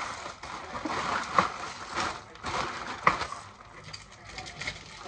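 Plastic packaging rustling and crinkling as items are handled, with two sharper knocks about a second and a half and three seconds in.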